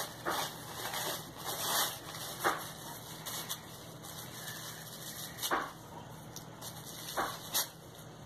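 Wrapping paper rustling and crinkling as a wrapped toy is handled, with four sharp clicks spread through it.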